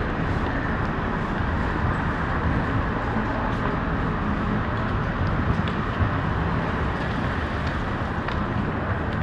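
Steady city street traffic noise: a continuous rumble and hiss from passing vehicles, with a few faint ticks on top.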